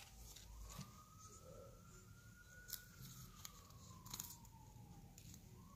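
Faint, distant emergency-vehicle siren wailing slowly: it rises over the first two or three seconds, falls back, and starts rising again near the end. A few faint clicks sound over it.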